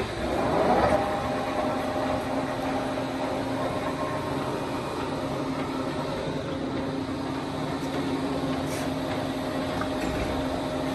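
1980 Poreba TPK90 engine lathe running under power, its spindle and chuck turning: a steady mechanical hum with a constant low tone and a higher tone over it, briefly louder about a second in.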